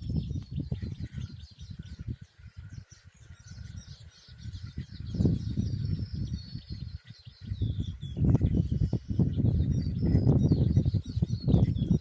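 Small birds chirping continuously, with bouts of louder low rumbling and knocking noise about five seconds in and again from about eight seconds on.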